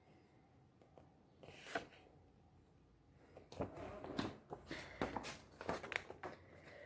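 A picture book handled in the hands: after a near-silent pause, a run of faint paper rustles and soft taps as the pages and cover are flipped over and turned around.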